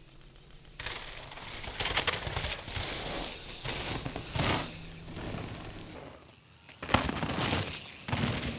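Mountain bike coming down a wet, muddy forest trail at speed: tyres rushing and crunching over dirt and roots, rising and falling, with a sharp knock about seven seconds in, the loudest moment.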